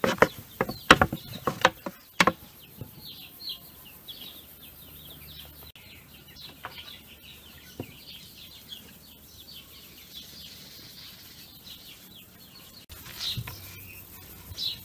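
Birds chirping: a long run of short, high chirps over a quiet background. A few sharp knocks come in the first two seconds.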